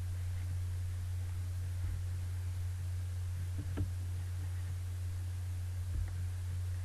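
A steady low electrical hum on the recording, with a faint click a little past the middle and another near the end.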